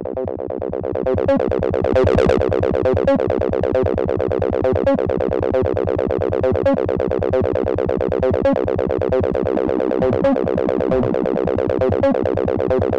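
Acid bassline imitating a Roland TB-303, played on the Serum software synth: a saw wave through an envelope-swept, resonant bandpass filter and tube distortion, running as a fast, steady sequence of short notes. It grows louder over the first second or two, then holds even.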